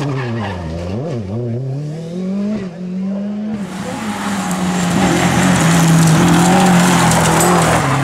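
Rally car engines at full effort: first a Ford Fiesta rally car's engine revving up and down quickly through gear changes, then another rally car held at high revs as it slides on loose gravel, with a hiss of tyres and spraying stones.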